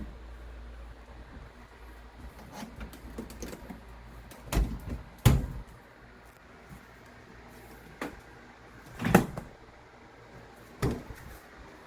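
A series of five door-like thuds and knocks, spaced irregularly, the loudest about five seconds in and about nine seconds in, over a low steady rumble in the first few seconds.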